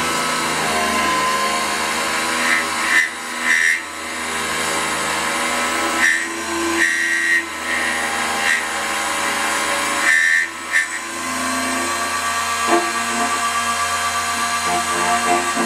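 Key-duplicating machine's motor running steadily while its milling cutter makes light passes along a key blank, with a brighter, higher cutting sound rising three times as the cutter bites into the metal.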